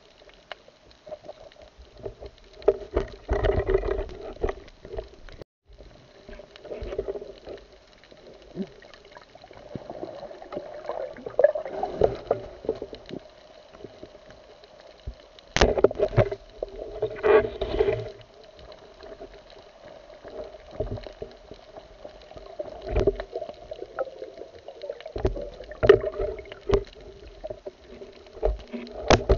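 Muffled underwater sound picked up by a camera in a waterproof housing: water moving against the housing, with irregular knocks and bumps from handling and a few louder surges.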